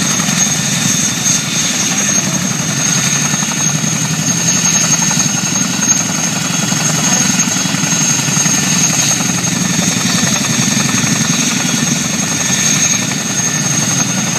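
Boeing CH-47 Chinook tandem-rotor helicopter, with its twin turboshaft engines, running steadily: a dense low rotor thrum with a steady high turbine whine over it.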